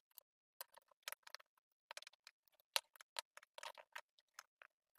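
Faint, scattered small metallic clicks and scrapes, with one sharper click near the middle: a new trigger spring being pressed down onto its guide in a spring block while reassembling a Taurus 856 revolver's trigger spring assembly.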